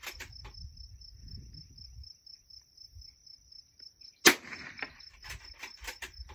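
A single .22 LR rifle shot from a Bergara rimfire about four seconds in, sharp and loud, followed by a few lighter clicks. Insects chirp steadily in a rapid, pulsing high trill throughout.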